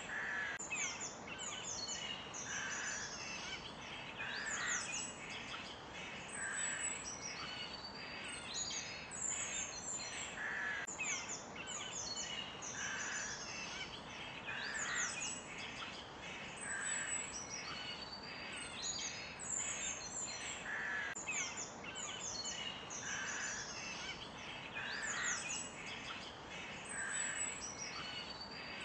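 Woodland birdsong: many small birds chirping and trilling high, with a lower call repeating about every two seconds, over a steady background hiss.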